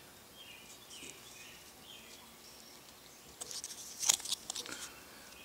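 Cardboard 2x2 coin holder rustling and clicking against fingers as it is turned over: a short flurry of handling noise from about three and a half seconds in, with one sharp click just after four seconds. Faint bird chirps repeat in the background.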